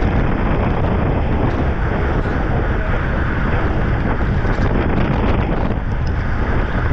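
Wind buffeting the microphone of a camera on a moving racing bicycle: a steady rushing noise heaviest in the low end, with no letup.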